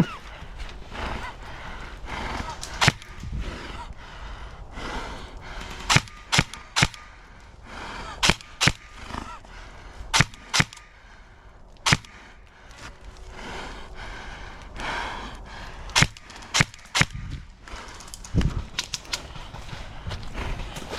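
Airsoft guns firing single shots: sharp cracks at irregular intervals, some in quick pairs and triples, with a low rustling background between them.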